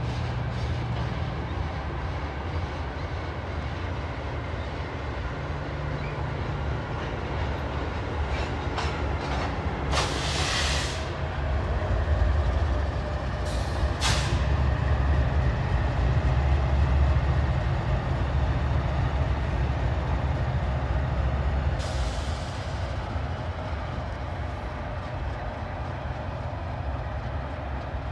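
A freight train rolls past with a steady low rumble as it slows toward a stop. A few short, sharp noises stand out above the rumble, about a third and halfway through, and again later.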